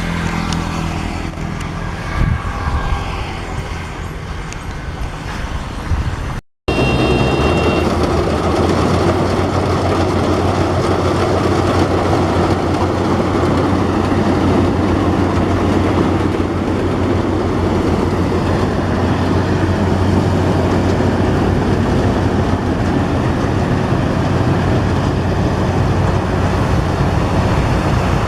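Yanmar AW82V combine harvester running steadily, the diesel engine's drone mixed with the noise of the harvesting machinery. The sound cuts out for a moment about six seconds in, then returns louder.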